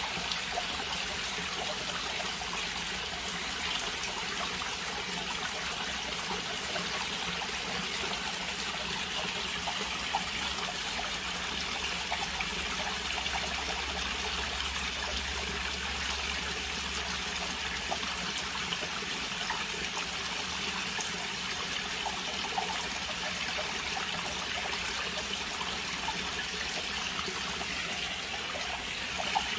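Steady trickle and splash of water running into a garden fish pond, with a few faint clicks.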